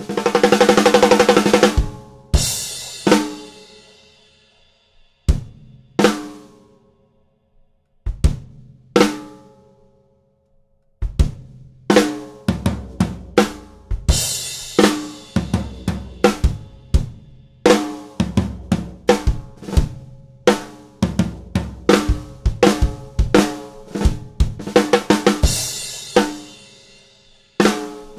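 Gretsch Black Copper snare drum played on a drum kit. A quick run of snare strokes comes first, then single snare hits left to ring with pauses between them. From about eleven seconds in a steady groove follows with bass drum and hi-hat, and a cymbal crash near the end.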